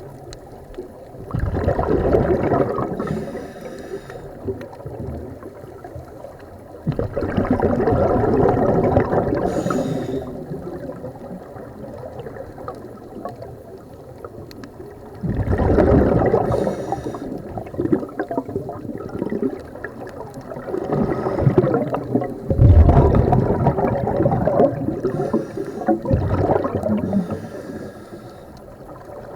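Scuba diver's breathing heard underwater: about five long bubbling rushes of exhaled air from the regulator, each lasting a few seconds and coming every six or seven seconds, with quieter stretches between breaths.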